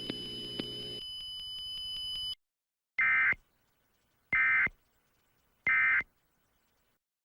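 Emergency Alert System end-of-message (EOM) tones: three identical short, buzzy bursts of SAME digital data, each under half a second and about 1.3 seconds apart, signalling the end of the alert. Before them a faint steady high whine and hum stop about two seconds in.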